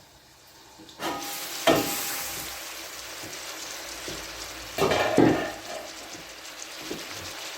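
Chicken pieces sizzling as they fry and brown in a pan, the sizzle starting suddenly about a second in. Metal clatter against the pan at about two seconds and again around five seconds, as the chicken is stirred.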